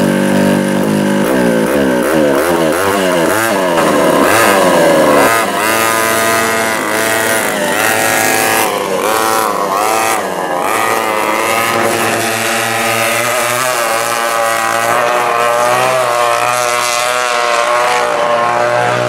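A pair of West Bend 820 single-cylinder two-stroke kart engines running together. They rev up and down in repeated swooping rises and falls for the first half, then hold steadier with smaller rises and dips as the kart runs.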